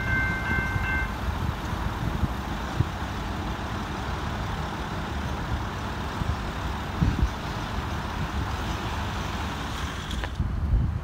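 Railway level crossing warning bells ringing, then stopping about a second in as the crossing clears, leaving steady traffic noise.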